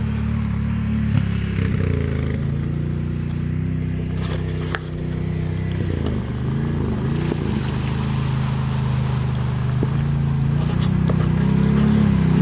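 ATV engine running with a steady note that dips and rises in pitch about six seconds in, growing louder near the end as the quad comes closer through the water.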